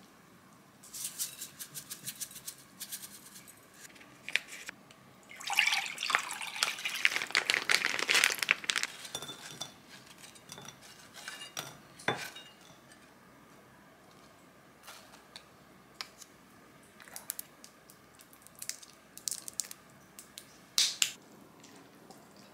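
Chopsticks clicking and scraping against a ceramic frying pan and a ceramic plate as fried pieces are moved across, with scattered clinks of dishes. About five seconds in comes a few seconds of dense crackling hiss, and near the end a single sharp clink.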